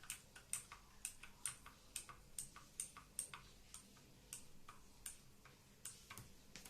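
Clicky blue-switch keys on a mechanical keyboard pressed one at a time, a faint click for each press at about two or three a second, with a short pause about halfway through.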